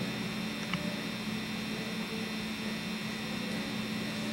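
Steady electrical hum with hiss, the background noise of the recording, with one faint tick under a second in.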